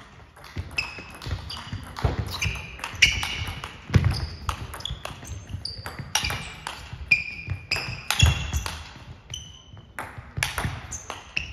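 Long table tennis rally: the celluloid-type plastic ball clicking sharply off the rubber bats and the table about two to three times a second, many hits with a brief high ring, in a reverberant sports hall.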